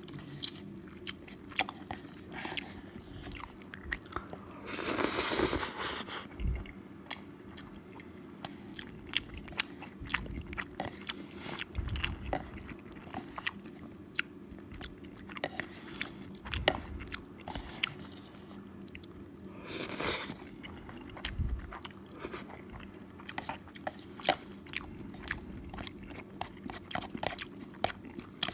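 Close-up eating of thick jjajang cup noodles: wet chewing with many short clicks and smacks, and two longer noisy slurps, one about five seconds in and one past the middle.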